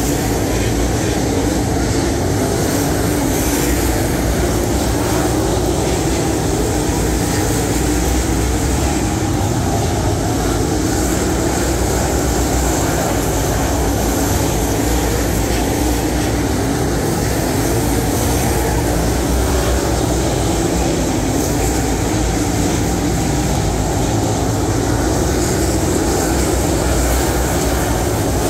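Several dirt late model race cars' V8 engines running at racing speed around a dirt oval. Their sound blends into one loud, steady drone with no pauses.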